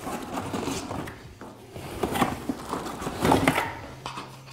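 Cardboard and plastic packaging rustling and scraping as a part is pulled from a small cardboard box and unwrapped, with a few sharper knocks of the box and parts, the loudest about two and three and a half seconds in.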